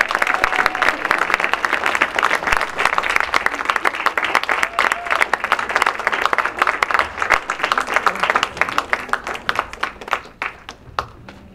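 Audience applause: many people clapping in a dense patter that thins out and dies away near the end.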